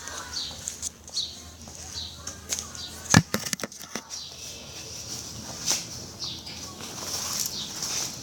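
A bird chirping over and over in short falling chirps, with a quick run of sharp clicks and knocks about three seconds in.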